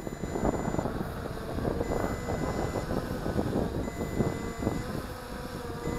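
Low-battery warning from the MJX Bugs 12 EIS drone's remote controller: a beep at two high pitches, about a second long, repeating every two seconds while the drone returns home on a nearly flat battery. Underneath, wind buffets the microphone and the drone's brushless motors hum steadily.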